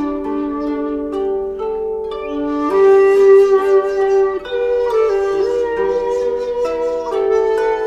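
Instrumental background music, a melody of held notes that change pitch every second or so.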